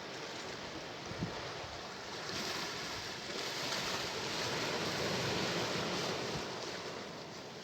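Sea waves washing in: a steady rush of surf that swells about two seconds in, is loudest a few seconds later, and eases off near the end. A brief thump about a second in.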